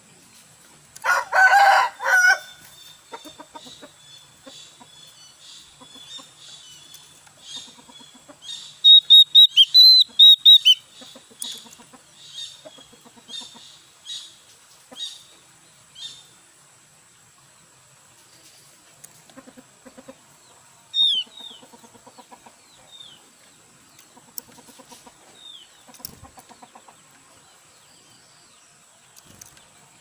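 Javan grey-throated white-eye (opior jawa) calling: a quick run of sharp, high chirps about a third of the way in, then single high notes about once a second and a loud falling note past the middle. A rooster crows once, loudly, near the start.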